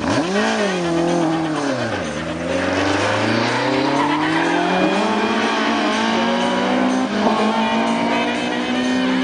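Rally car engine revving hard as it accelerates out of a tight bend. The pitch rises, drops back about two seconds in, then climbs steadily as the car pulls away.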